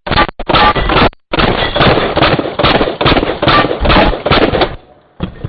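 A gun firing in a rapid, sustained burst, with a few brief breaks, stopping shortly before the end.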